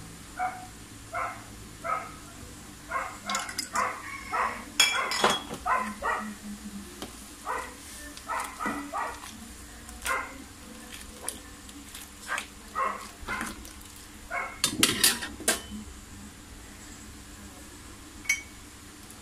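A dog barking repeatedly in short bursts, with a metal ladle clinking and scraping in a wok.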